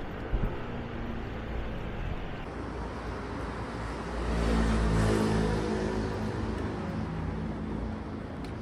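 Street traffic noise, with a motor vehicle's engine passing close and growing louder from about four to six seconds in, then easing off.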